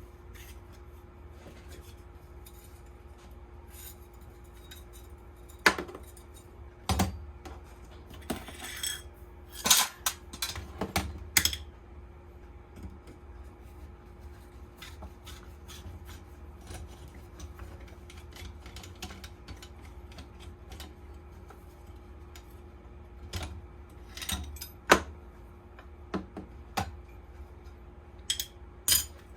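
Metal parts of a rusty hand plane clinking and clunking against each other and the bench as the plane is taken apart. The knocks come in two scattered clusters with a long quiet stretch between them.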